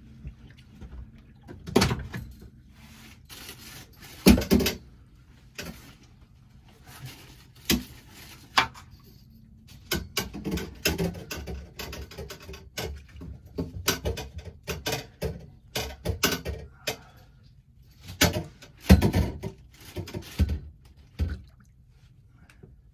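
A string of irregular knocks, bumps and clatters from gear being handled aboard a small boat as a landing net is got out, over a faint steady hum. The loudest knocks come about four seconds in and again around nineteen seconds.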